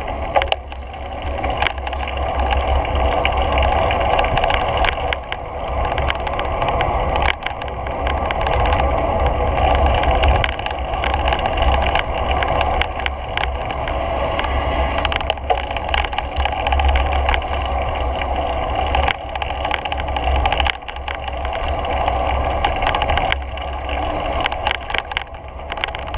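Continuous ride noise from moving along an asphalt path: a low wind rumble on the microphone and a steady hum from wheels on the pavement, with scattered light clicks and rattles.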